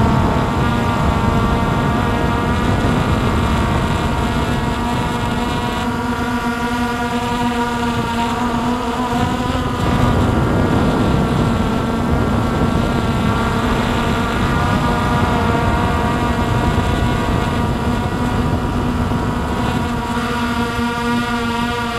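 Hubsan X4 Pro quadcopter's electric motors and propellers whining steadily, heard from its onboard camera, the pitch dipping and rising a few times with throttle changes. Beneath it is a low rush of wind on the microphone.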